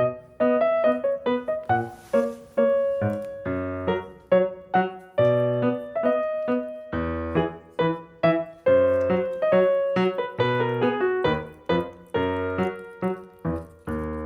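Background music: a light piano tune of separate struck notes over bass notes.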